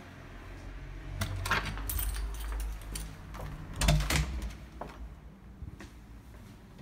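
Keys jangling and clicking at a metal door handle and lock: a run of clinks from about a second in, with a heavier knock at about four seconds.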